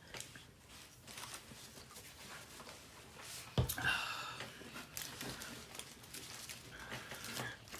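Chewing and eating tacos close to the microphone: wet mouth noises and small crunches, with a sharp thump about three and a half seconds in.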